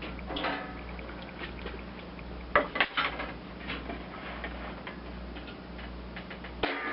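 Scattered light metallic clinks and taps from handling tin roofing sheet and hand tools, over a steady low hum.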